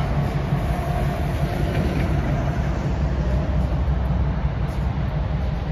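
Freight cars, a covered hopper nearest, rolling slowly along the track: a steady low rumble from the wheels.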